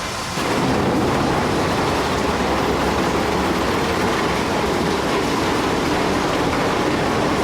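Heavy machinery running in mud, a loud, steady rushing rumble that steps up about half a second in and holds.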